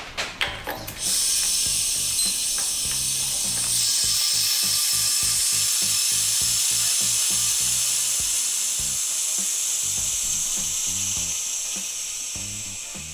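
A few clicks, then a sudden steady hiss of air rushing through the vacuum line of an Aicohsha (Kodaira) vacuum chemical mixer. The hiss grows a little louder a few seconds in and fades slowly near the end, as the pressure in the mixing vessel evens out.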